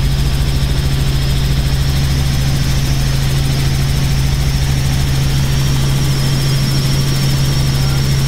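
Helicopter in flight, heard from inside the cabin: the engine and rotor make a loud, steady drone with a constant low hum and a fast, even pulsing underneath.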